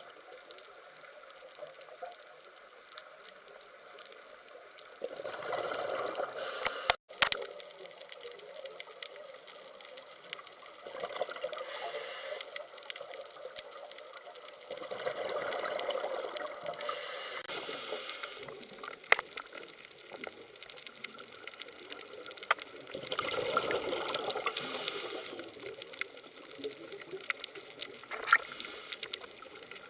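Water trickling and gurgling. It swells louder for a second or two every few seconds, with a few sharp clicks.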